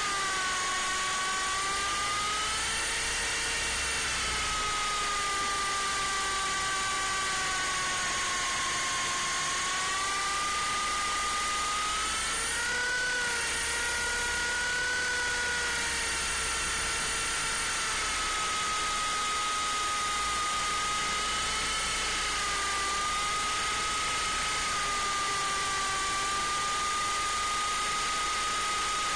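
MJX F45 RC helicopter's motor and rotor whining steadily, heard from a camera mounted on the airframe. The pitch drops right at the start, rises briefly about thirteen seconds in, and otherwise wavers slightly.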